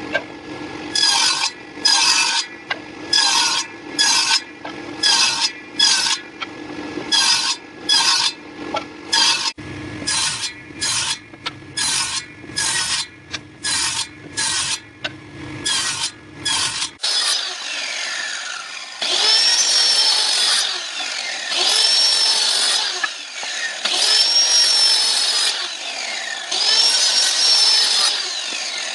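Wood being worked with rhythmic rubbing strokes, about one and a third a second. About two-thirds of the way in these give way to a power tool making repeated passes about every two seconds, its whine rising and falling with each pass.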